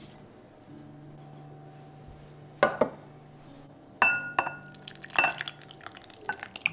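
A kitchen utensil clinking and scraping against a glass mixing bowl in three bursts, about two and a half, four and five seconds in, some strikes ringing briefly. It comes as the mashed banana and milk mixture is scraped into the pancake mix.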